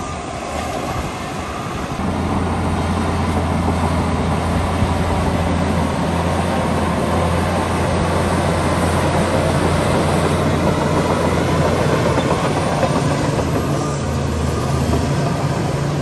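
Shantui crawler bulldozer's diesel engine running under load, its steady low drone strengthening about two seconds in, over a continuous clatter of the machine working.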